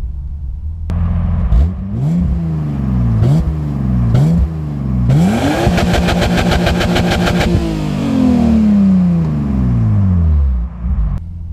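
BMW M52-family straight-six revved in several quick blips, then held against the rev limiter with a fast stutter for about two and a half seconds before the revs fall back to idle. The limiter, reset to around 7,000 rpm in the reflashed Siemens MS41 ECU, cuts in where intended.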